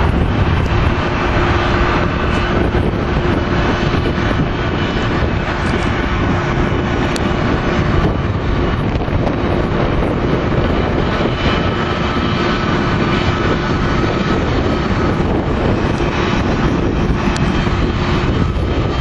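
Boeing 757-300 jet engines running with a steady, loud rush of noise and a steady hum under it.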